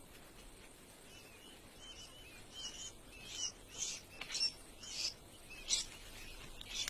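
Sandgrouse chicks cheeping: a run of about ten short, high chirps, spaced roughly half a second apart, growing louder toward the end.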